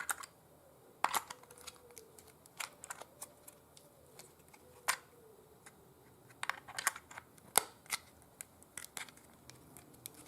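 Irregular small clicks and light taps of hard plastic parts being handled and fitted together, as a wall charger's plug adapter is snapped into place.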